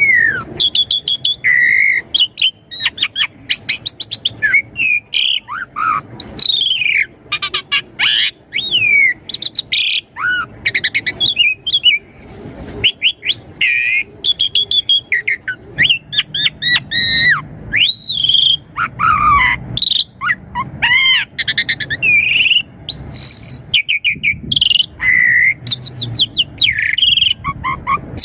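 Asian pied starling (jalak suren) singing energetically, a rapid nonstop medley of varied whistles, squeaky rising and falling notes and sharp clicks.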